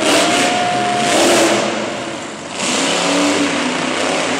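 Monster truck engine revving hard during a jump and the drive away. The engine pitch rises and falls, eases off a little after two seconds in, then opens up again.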